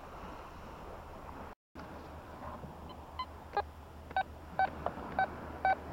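Quest Q40 metal detector giving short, high beeps about twice a second as its coil is swept back and forth over the sand: the target tone for a buried object under the coil. Before the beeps there is only a faint background hiss.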